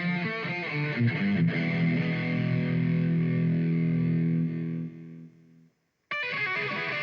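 Electric guitar played through an overdrive pedal, with a distorted tone. A few quick notes lead into a chord struck about a second in and left ringing. The chord is choked off near the end, and after a brief silence the playing starts again.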